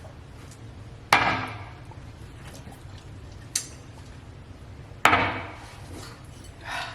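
Two sharp knocks of hard objects on a hard surface, about four seconds apart, each followed by a short ringing decay, with a faint click between them.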